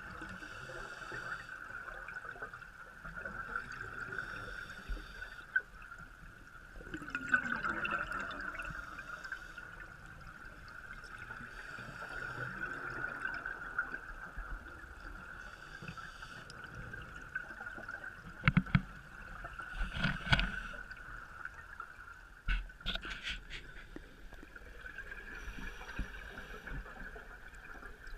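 Underwater audio of scuba divers breathing on regulators: a short hiss of breath every few seconds and gurgling exhaled bubbles, over a steady high hum. A few sharp knocks come in the latter half.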